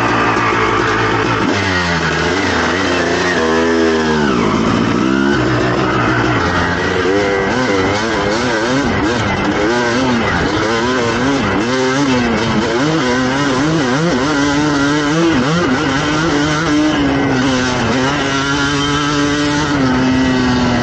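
2007 Suzuki RM250's 250cc two-stroke single with an FMF exhaust, ridden hard at wide-open throttle. The engine pitch climbs sharply and drops again and again through the gears, and settles into a steadier high note near the end.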